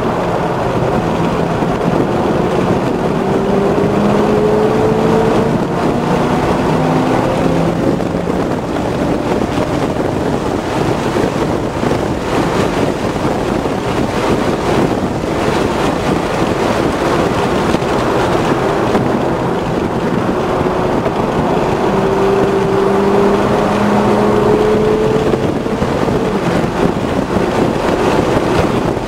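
Inside the cabin of a 2006 Chevrolet Corvette with its 6.0 L LS2 V8 and automatic, driven hard on a race track. The engine note climbs in pitch twice as the car accelerates, about two seconds in and again past the twenty-second mark, over steady wind and tyre noise.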